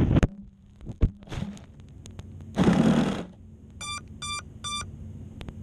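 A dubstep track cuts off abruptly. A sharp click and a brief loud rushing noise follow, then three short, evenly spaced electronic beeps.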